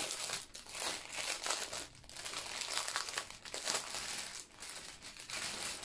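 Clear plastic bag crinkling as hands pull at it and handle the bundle of small bags of diamond-painting drills inside, an irregular crackly rustle.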